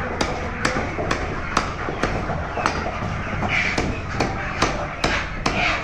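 Meat cleaver chopping raw chicken on a wooden chopping block: a steady run of sharp chops, about two a second, over a low background hum.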